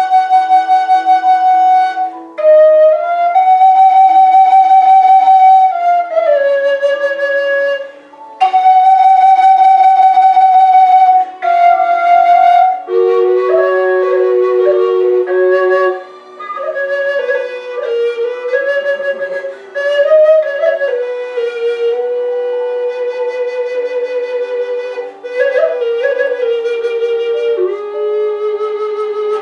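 Native American-style double drone flute, an HS Signature in F# minor, playing a slow improvised melody. Long held notes come in phrases with short breaks between them, over the flute's steady lower drone note.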